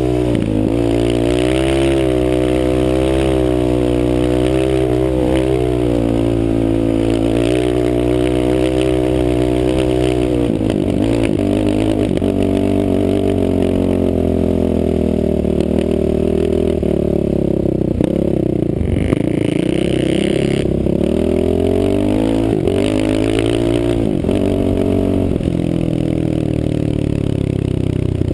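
Off-road vehicle engine running under throttle over sand, its pitch rising and falling as the throttle is worked, with a few brief dips where it is rolled off, heard from the rider's helmet.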